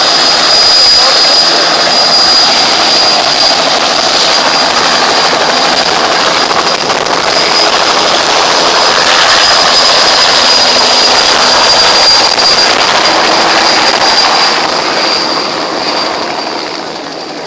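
Bell 206 JetRanger helicopter's Allison 250 turboshaft running at flight power, with a steady high turbine whine over loud rotor and exhaust noise as it lifts into a low hover. Near the end the sound drops in level and comes from farther off.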